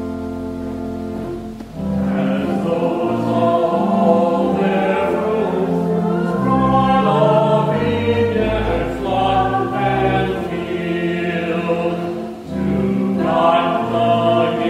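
Pipe organ finishes the introduction to a hymn. About two seconds in, voices join in singing the hymn with organ accompaniment, with a short breath between lines near the end.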